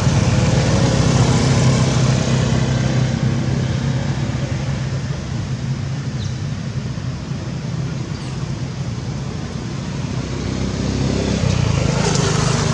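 A motor engine running, loudest at first, easing off through the middle and building again near the end, with a steady low hum.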